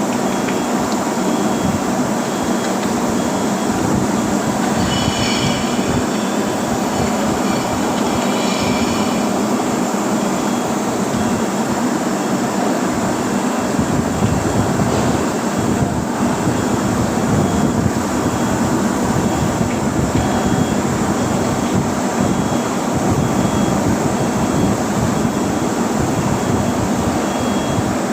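Steady, loud rumble of foundry machinery as a ladle of molten metal is carried between furnaces, with a brief high squeal about five to nine seconds in. A faint high beep repeats throughout.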